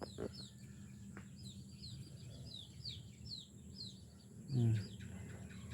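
Birds chirping: a run of short, high, downward-sliding chirps, two or three a second, over a faint steady low hum. A brief voice-like sound comes about four and a half seconds in.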